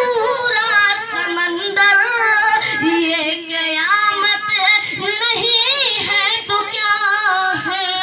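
A young male singer sings a naat, an Urdu devotional song, into a microphone in a high voice. He holds long notes with wavering, gliding ornaments.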